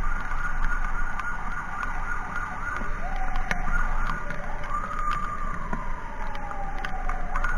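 Emergency siren sounding in a fast warbling yelp. About halfway through it changes to a single tone that rises and then slides slowly down, and the fast yelp returns near the end. A steady low road-and-wind rumble lies underneath.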